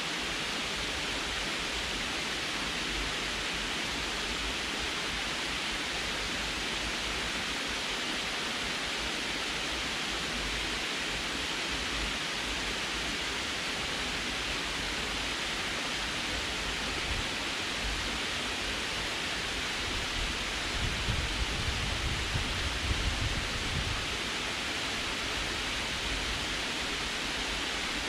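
Water pouring steadily over a low concrete dam spillway and splashing into the pool below, a dense, even rush. A few seconds of low rumble come in near the end.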